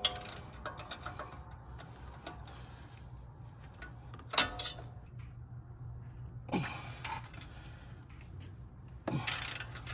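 Metal hand tools clinking and tapping against each other and the brake parts, with one sharp ringing clink about four seconds in and softer ticks in between.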